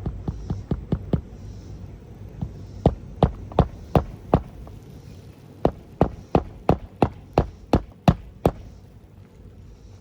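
Hammer driving nails into an asphalt roof shingle: three runs of sharp, evenly spaced blows, a few tenths of a second apart, over a low steady hum.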